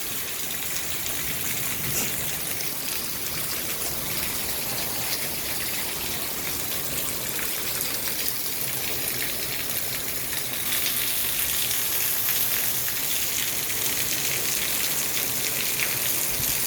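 Very heavy thunderstorm rain pouring down and splashing, a steady dense hiss that gets louder about ten seconds in.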